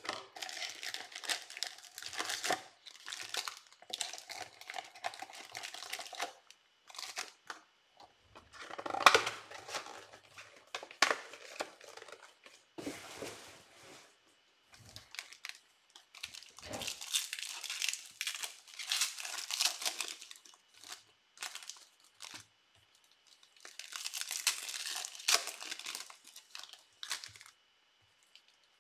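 Trading card pack wrappers being torn open and crumpled, in several bursts of crinkling and tearing with short pauses between.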